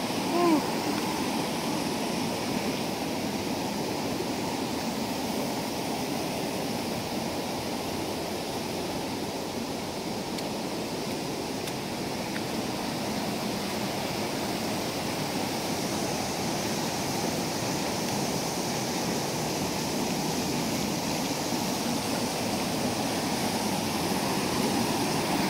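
White water of a rocky creek rushing over cascades and small falls: a steady, even rush that grows a little louder near the end.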